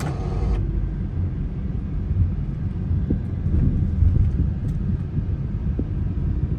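Car cabin noise while driving slowly: a steady low rumble of engine and tyres heard from inside the car, with a brief pitched sound right at the start.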